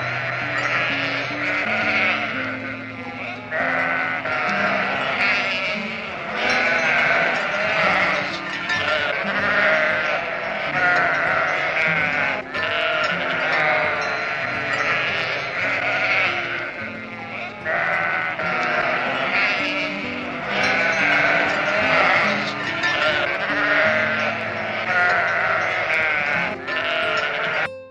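Livestock bleating again and again in wavering calls over background music with a stepped bass line.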